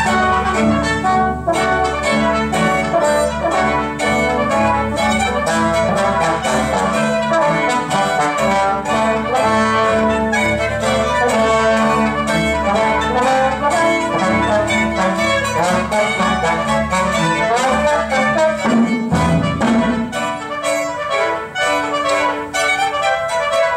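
Orchestral music with brass and strings, played back from tape over Sonist Concerto 4 loudspeakers driven by deHavilland 50A tube monoblock amplifiers.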